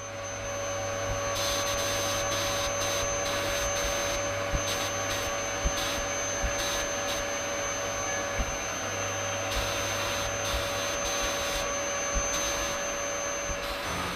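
Abrasive blast cabinet in use: a steady rush and hum of the cabinet running, with the blast gun's high hiss of grit and air cutting in and out many times as a small rusty metal part is blasted clean. A few light knocks of the part against the gun or cabinet.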